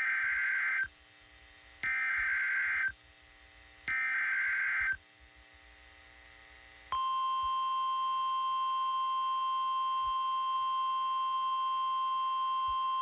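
NOAA Weather Radio SAME alert header: three roughly one-second bursts of warbling digital data tones, about a second apart. About seven seconds in, the steady single-pitch warning alarm tone starts and holds, signalling that a warning message is about to be broadcast.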